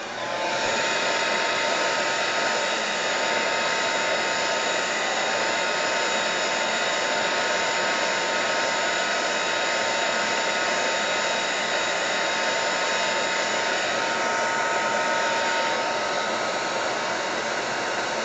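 Handheld electric dryer switched on and blowing steadily, a constant rush of air with a steady motor whine. It is drying wet water-colour paint on paper.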